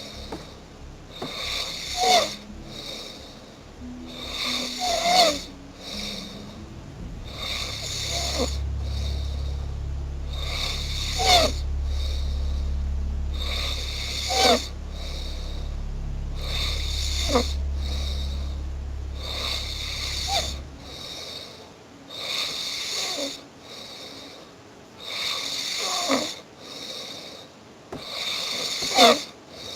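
Steady rhythmic snoring, one snore about every three seconds. A low steady hum runs underneath through the middle stretch and stops abruptly about two-thirds of the way in.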